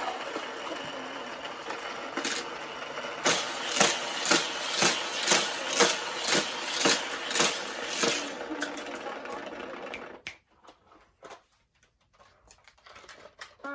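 Hot Wheels Criss Cross Crash track set's battery-powered booster whirring, with a rhythmic clatter about twice a second as die-cast cars are shot through it and around the loops. It cuts off suddenly about ten seconds in.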